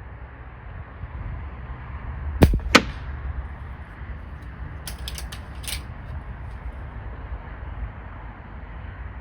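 Gamo Swarm Whisper .22 break-barrel air rifle firing: a sharp crack followed by a second crack about a third of a second later. A quick run of clicks and clacks comes about two seconds after.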